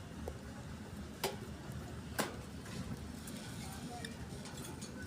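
Caged budgerigars mostly quiet, with a few faint short chirps and two sharp clicks about a second apart, over a low steady background rumble.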